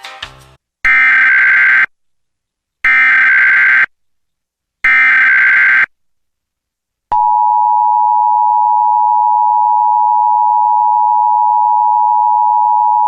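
Emergency Alert System SAME header: three identical one-second bursts of warbling data tones, encoding a tornado warning. About seven seconds in, after a short silence, the EAS attention signal starts: a loud, steady two-tone alarm just under 1 kHz (853 and 960 Hz together) that holds without a break.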